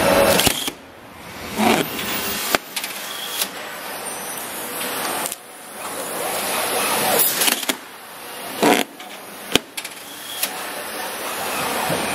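Automatic door packaging machine running: a noisy mechanical whir that swells and fades as the cardboard-wrapped door moves along the conveyor. Sharp clicks and knocks come at irregular moments, the loudest just before ten seconds in.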